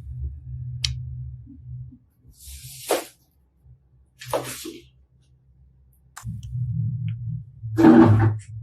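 Slime being squeezed and worked by hand: three short squelching pops a second or two apart, the last the loudest, over a low rumble of handling.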